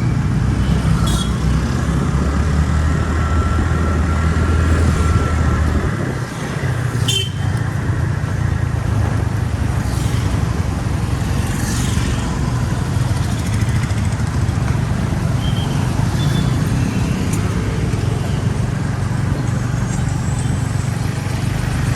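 A motor vehicle running: a steady low rumble that shifts about six seconds in, with a sharp click about a second later.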